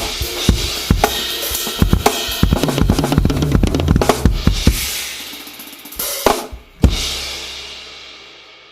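Tama drum kit with low, dry tuning and Meinl cymbals being played: a busy run of kick, snare and tom hits for about five seconds while the cymbals wash, then a short flurry, a brief stop, and one loud final crash hit left to ring out and fade.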